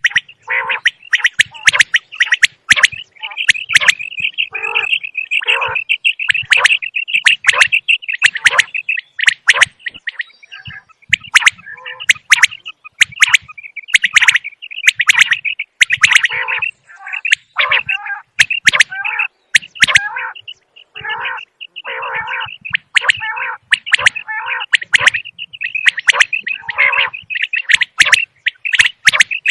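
Common quail calling over and over, a dense run of short high notes with sharp clicks all through.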